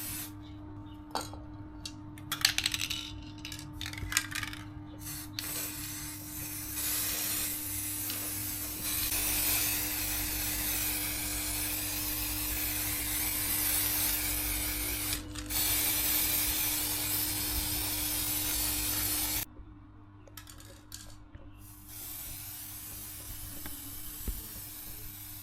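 A few sharp clicks and knocks, then a steady spraying hiss for about twelve seconds with a faint steady hum under it; both cut off suddenly, followed by a few light knocks.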